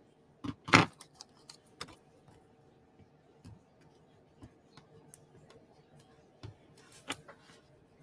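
Scattered small clicks and rustles of hands handling a small paper die-cut and its adhesive, with a few slightly louder clicks near the start and again near the end.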